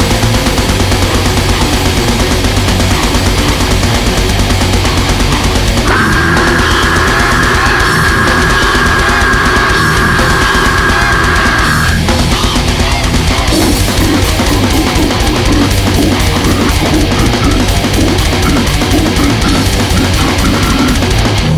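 Extreme heavy metal music: heavily distorted guitars over dense, rapid drumming, steady and loud throughout. A held, high, noisy tone rides on top from about six to twelve seconds in.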